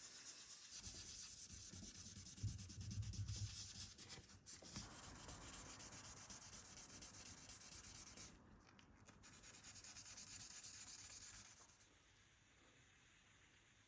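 Faint, steady abrasive rubbing on a small model car part, with brief pauses, stopping about twelve seconds in. A few soft low bumps come near the start.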